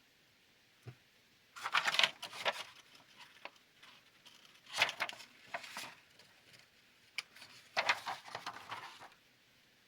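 Small plastic and metal kit parts being handled and fitted by hand, clicking and rattling in three short bouts.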